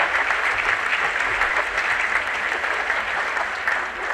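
A large audience applauding steadily, a dense mass of many hands clapping.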